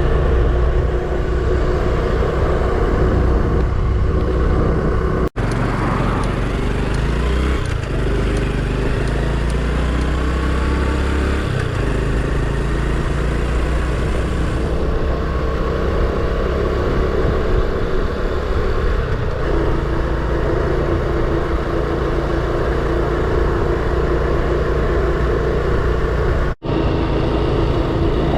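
Honda Super Cub's single-cylinder four-stroke engine running on the move, with steady engine and road noise. The sound cuts out for an instant twice, about five seconds in and near the end.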